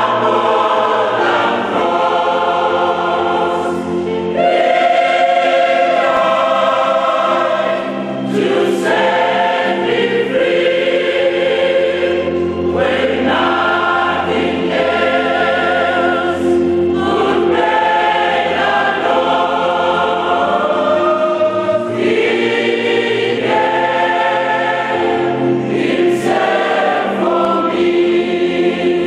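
A church choir singing a hymn together, many voices holding long sung phrases with brief breaks between them.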